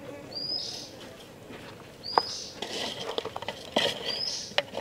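A hand mixing raw chicken pieces with salt and greens in an aluminium pot: wet squelching and light clicks against the metal, with one sharper click about two seconds in. A bird calls a short high note about every two seconds.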